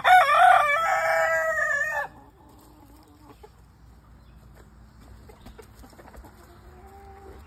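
A rooster crowing once: a single long call of about two seconds with a wavering pitch.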